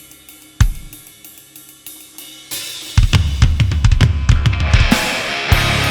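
Live rock band opening a song: a drum kit ticks quietly on the hi-hat with a single heavy hit, then a drum fill builds over the snare and toms, and the full band comes in loud with distorted guitars near the end.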